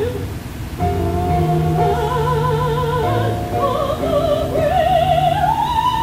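Music: an operatic voice holding long notes with wide vibrato over instrumental accompaniment, the melody climbing in pitch near the end.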